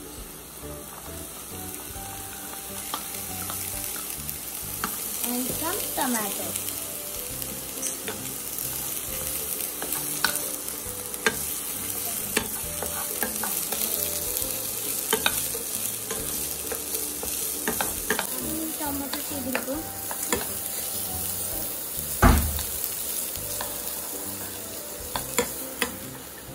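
Chopped vegetables sizzling in a nonstick wok while a wooden spatula stirs them, with scattered clicks and scrapes of the spatula against the pan and one louder knock near the end.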